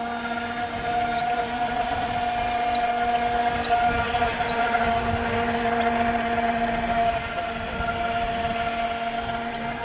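Radio-controlled scale model boat running at speed on the water, its motor giving a steady whine that grows louder over the first second, over the rush of water from its hull and wake.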